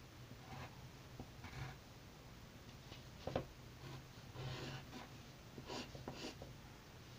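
Wooden pencil scratching on paper in short, faint strokes, with one sharper tick near the middle.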